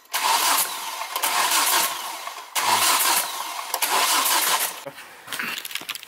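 Volvo five-cylinder engine being cranked over on the starter, in long runs with a brief break about two and a half seconds in, then tailing off near the end. This is a no-oil-pressure crank test of the exhaust VVT hub, which is judged blown.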